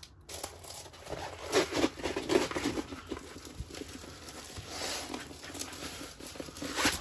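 Crinkling and rustling of a plastic-covered diamond painting canvas being rolled back the other way to flatten it, with a few louder crackles around two seconds in.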